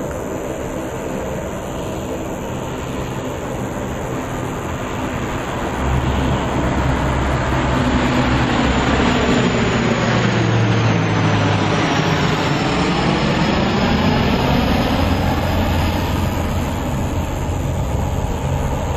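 Airliner flying low overhead: a steady engine hum, then about six seconds in the engine noise jumps louder and stays loud, with a high whine that falls in pitch as the plane passes.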